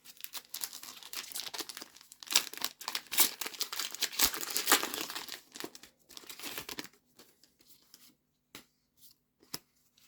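Foil wrapper of a Pokémon trading card booster pack being crinkled and torn open for about seven seconds, followed by a few light taps near the end.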